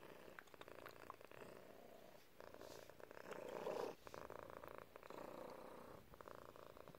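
Domestic cat purring close to the microphone, in runs of about two seconds with short breaks between them, loudest about halfway through.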